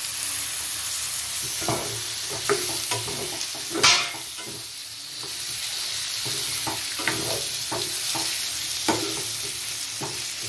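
Freshly added tomato pieces frying in hot oil with onions and masala in a kadai: a steady sizzle, with a spatula scraping and knocking against the pan as it is stirred. The sharpest knock comes about four seconds in.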